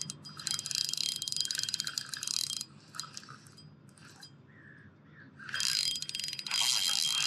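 Fishing reel ratcheting in fast runs of clicks while a hooked grass carp is played: one run lasting about two and a half seconds, a lull with a few scattered clicks, then another run from about five and a half seconds in.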